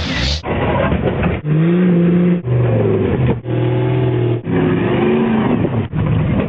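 Off-road vehicle engines revving up and down while climbing over rocks. The sound is chopped into short pieces about a second long.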